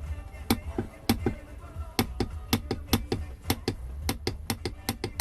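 A run of sharp clicks and taps, a few a second and unevenly spaced, from hand work fitting the drive gear on a Lambretta two-stroke engine.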